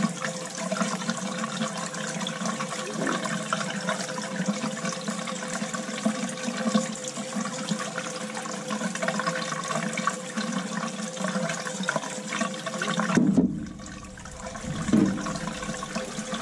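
Water and air sputtering out of a boiler purge hose into a bucket, crackling with the air still trapped in the hot-water heating loop. About thirteen seconds in the rush briefly turns duller and lower.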